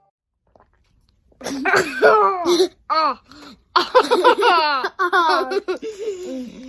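A person laughing hard in repeated bursts, starting about a second and a half in.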